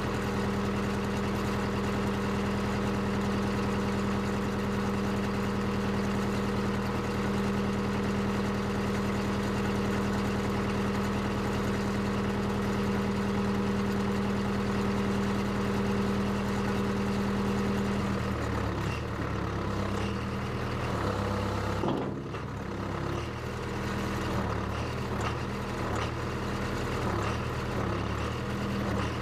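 Case 580CK backhoe's engine running steadily. About two-thirds of the way through, its note turns uneven, shifting up and down.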